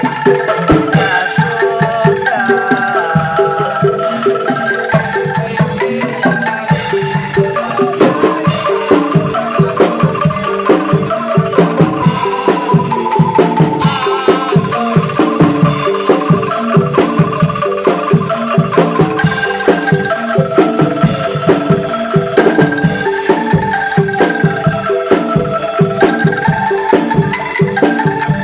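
Angklung ensemble playing a melody on shaken bamboo angklung, with a regular low percussive beat coming in about a quarter of the way through.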